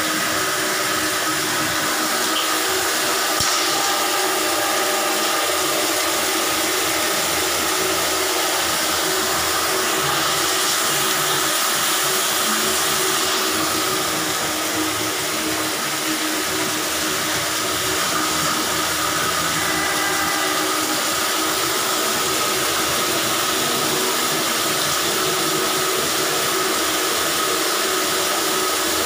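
Electric drum-type drain-cleaning machine running steadily, its motor spinning a spiral steel cable fed down a clogged bathroom floor drain.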